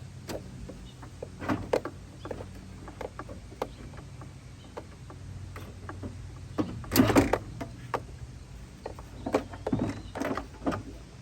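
Scattered clicks, knocks and rattles of hands working a wiring connector loose inside a car door, with a louder clatter about seven seconds in.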